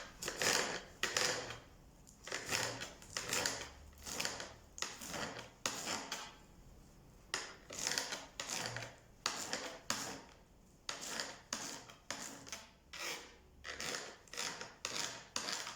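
Knife chopping celery on a cutting board: a long run of short, irregular cuts at about one or two a second.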